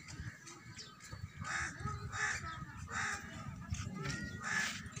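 A bird calling repeatedly, a run of short calls about two-thirds of a second apart, over a low rumble.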